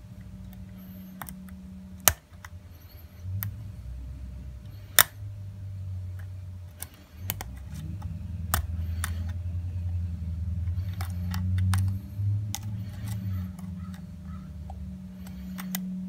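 Lock pick and tension wrench working the pins inside a Schlage padlock's keyway, with a run of small sharp clicks, the loudest about two and five seconds in, under a low hum that comes and goes.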